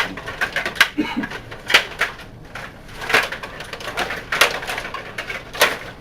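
Stiga rod table hockey in play: irregular sharp clicks and knocks of the plastic puck striking the players, rods and boards, with louder hits every second or so.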